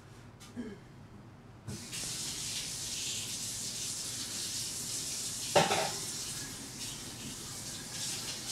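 Fluid pink soap batter pouring from a plastic pitcher into a loaf mold with a steady rushing, water-like hiss that starts suddenly about two seconds in, with one sharp knock about halfway through.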